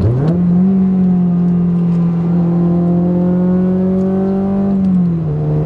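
2008 Honda Civic Si's 2.0-litre i-VTEC four-cylinder, breathing through a catless header and a full-race cat-back exhaust, revving up sharply and pulling hard at high revs under acceleration. The pitch climbs slowly, then drops to a lower steady note near the end as the revs fall.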